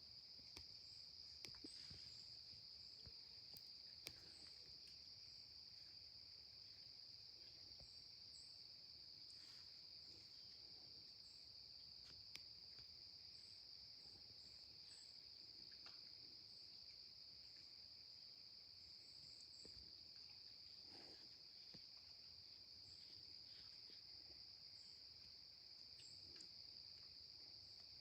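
Steady high-pitched drone of a chorus of crickets or similar night insects, unbroken throughout, with a few faint ticks and light rustles.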